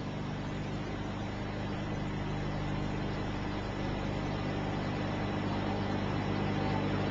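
Steady hiss and low hum of an old recitation recording, with no voice, slowly growing a little louder.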